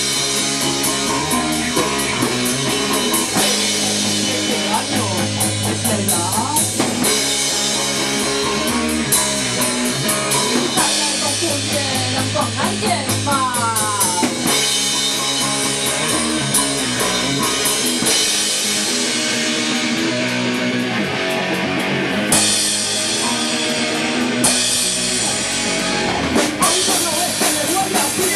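Punk rock band playing at rehearsal: drum kit, electric guitar and bass together, with cymbal crashes about two-thirds of the way through.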